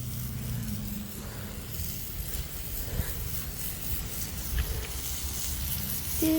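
A low, steady engine rumble with a faint hiss over it, and a faint knock about three seconds in.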